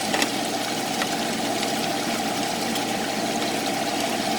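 Chicken pieces frying in hot oil in a pan with onions and sweet peppers, sizzling steadily, with a few sharp clicks, one near the start, one about a second in and one at the very end.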